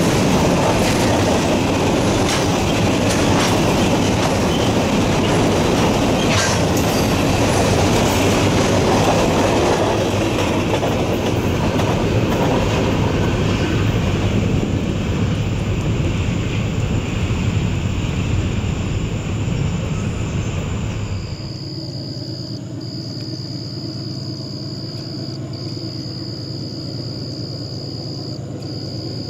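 Covered hopper cars of a unit phosphate freight train rolling past, the wheels clicking over the rail joints, the noise easing off as the train moves away. About 21 seconds in it gives way to a quieter low drone with a steady high tone that breaks off briefly every few seconds.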